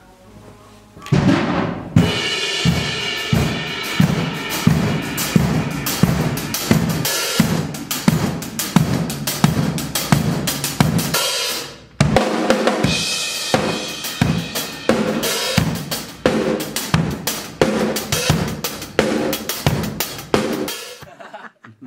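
Acoustic drum kit played in a steady groove, with kick drum, snare, hi-hat and cymbals; the kick drum is damped with pillows inside its open front head. The playing starts about a second in, breaks off briefly near the middle, and stops just before the end.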